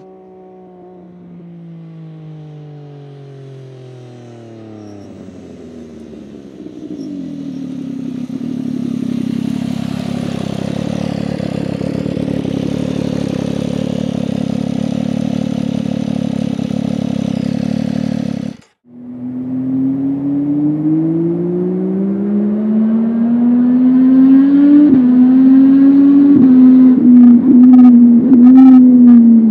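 MV Agusta F3 800's three-cylinder engine through an SC Project slip-on exhaust. For the first several seconds its note falls away, then it is held at steady revs. After a cut, the note rises long and loud under acceleration and levels off, with a few sharp cracks near the end.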